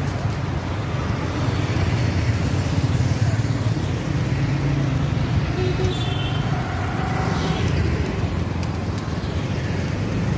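Steady city road traffic: motorcycles and cars running past in a continuous low rumble, with a few faint short higher-pitched sounds about midway.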